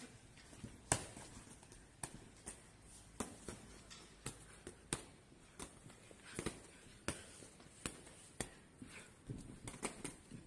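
Boxing gloves landing punches during sparring, with footwork on the ring canvas: irregular sharp smacks, about one or two a second, the loudest about a second in.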